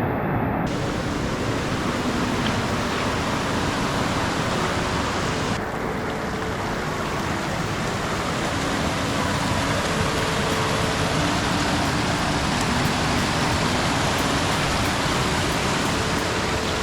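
Loud, steady rush of a waterfall's falling water, an even roar with no let-up.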